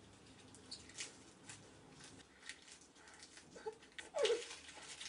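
Crisp lettuce leaves being bitten and chewed, short irregular crunches, with a brief muffled voice sound falling in pitch a little after four seconds in.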